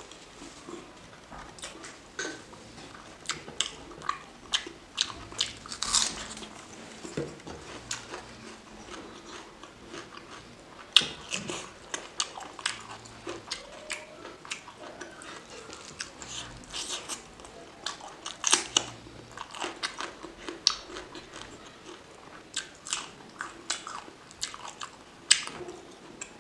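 Close-miked chewing and biting of chicken curry with rice: irregular wet smacks and sharp mouth clicks, now and then a louder crunch.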